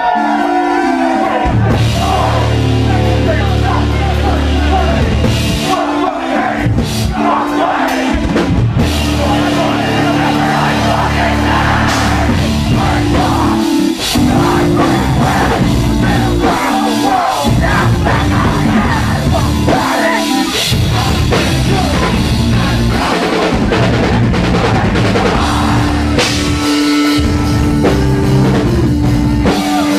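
Live heavy metal band playing loud, with drum kit, bass, guitar and synth, with vocals.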